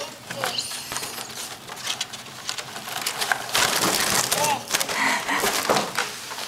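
Foil balloons crinkling and rustling in irregular crackly bursts as they are handled and bump against one another close to the microphone.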